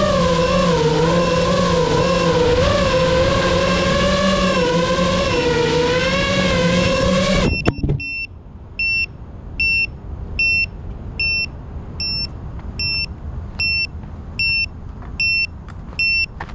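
Music with a wavering, theremin-like tone that cuts off about halfway through, leaving the electronic beeper of an FPV drone sounding short beeps about every 0.8 seconds.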